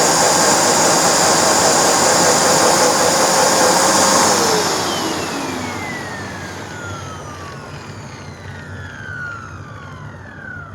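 Hoover NanoLite stick vacuum running with its power-nozzle brushroll driven through a badly stretched belt and a hot-glued idler pulley. About four seconds in it is switched off, and the motor whine falls steadily in pitch as it spins down over several seconds.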